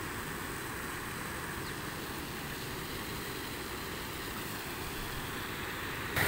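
Steady hiss of flowing floodwater from a river swollen by heavy rain, with no distinct events. Right at the very end it jumps suddenly to louder rushing water.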